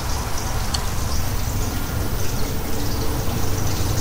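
Steady background hiss with a low hum, the recording's own noise floor, with one faint short tick under a second in.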